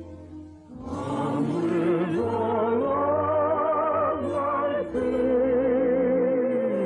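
Orchestral operetta music with long held notes that waver with vibrato, on an old radio broadcast recording. It dips briefly in the first second, then swells back up and settles on a long sustained note.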